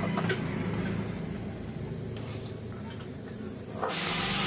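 Metal spoon stirring and scraping roasting sooji and sugar in a hot metal kadhai over a gas stove, with a steady low hum underneath. Near the end, water poured into the hot pan sets off a sudden loud hissing sizzle.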